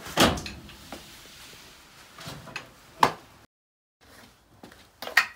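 Clunks and knocks of a front door being opened and an electric kick scooter being pushed through the doorway. The loudest knock comes just after the start, another sharp one about three seconds in, and more near the end, with the sound cut off dead for about half a second in between.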